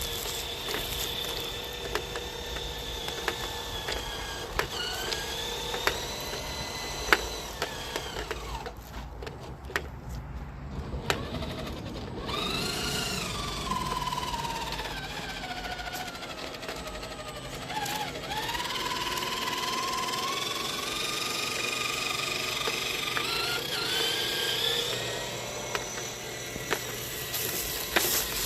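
RC scale crawler truck's electric motor and geared transmission whining in first gear, the pitch rising and falling as the throttle is worked, with a few sharp clicks along the way.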